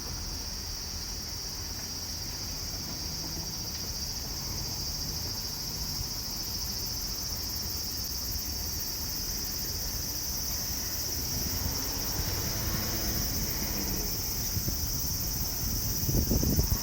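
Cicadas buzzing in a constant high drone, with a faint low rumble underneath. A louder burst of low rumble comes near the end.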